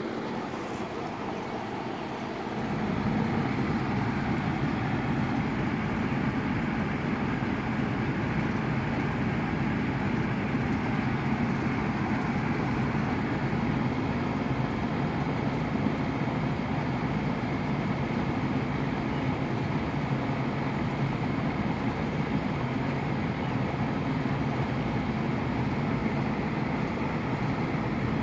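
A steady low mechanical drone that starts about two and a half seconds in and then holds even.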